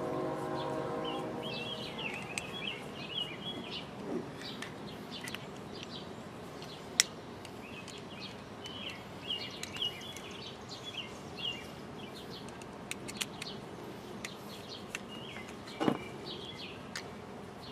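A songbird singing repeated chirping phrases, with scattered small clicks of hose fittings being handled, a sharp click about seven seconds in and a knock near the end.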